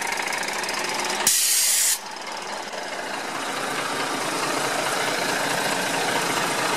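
Ford L8000's 7.8-litre turbo diesel idling steadily. A little over a second in, a short, sharp hiss of compressed air from the air brake system lasts under a second.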